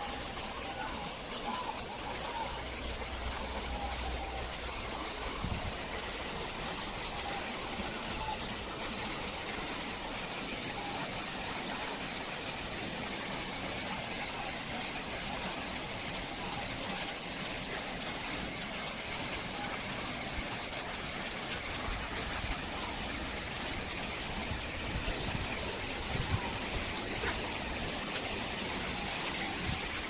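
Steady rushing hiss of a tall man-made waterfall, with a few faint bird chirps in the first few seconds.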